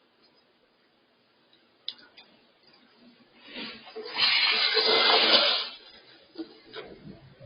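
A sharp click, then a loud hissing rush of noise lasting about two seconds that starts about halfway through and cuts off.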